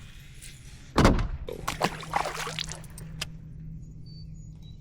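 A sudden splash of water about a second in, followed by a couple of seconds of sloshing and dripping, under a steady low hum.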